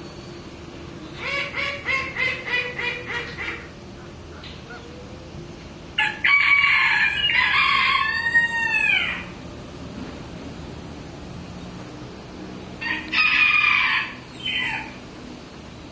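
Rooster calling: a quick run of about eight clucks, a loud crow of about three seconds starting about six seconds in, then a shorter call near the end.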